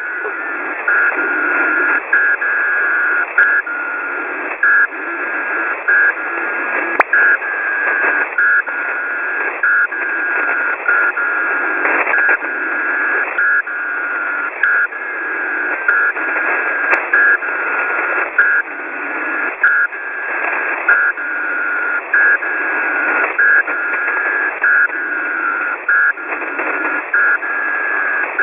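Shortwave radio static heard through an SDR receiver's audio passband, carrying a steady two-tone digital data signal that hops between its tones in short blips about once a second.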